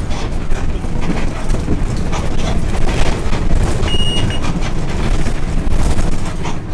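City bus driving along: steady engine and road rumble with many small knocks and rattles. A short high beep sounds about four seconds in.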